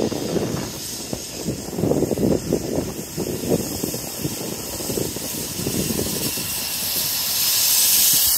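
Furness Railway No. 20 steam locomotive passing slowly beneath, its exhaust beating unevenly, with a loud hiss of steam swelling near the end as the chimney comes under the bridge.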